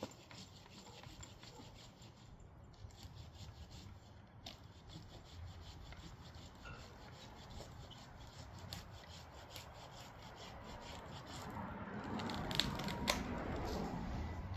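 Faint rubbing and scraping with many small ticks, growing louder in the last few seconds, with two sharp clicks near the end.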